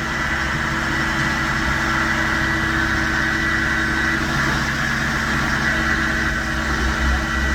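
Crane truck's engine running steadily with a steady high hydraulic whine while the boom lowers a cut piece of tree.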